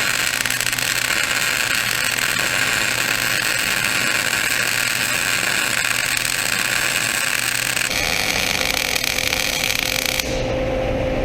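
Electric arc welding on the steel of a two-bottom plow, reattaching its broken moldboard: a steady hissing arc that shifts in tone about eight seconds in and cuts off about ten seconds in, leaving a steady low hum.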